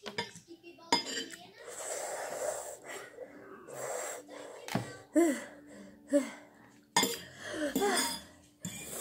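Eating spicy instant noodles: a metal fork clinks and scrapes on a plate, with breathy open-mouthed breaths and short hums and gasps from the heat of the chili.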